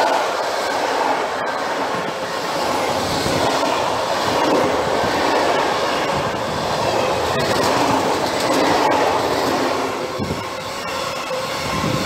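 Container freight train's wagons rolling past close by: a steady loud rumble of steel wheels on the rails, with a few sharp clicks.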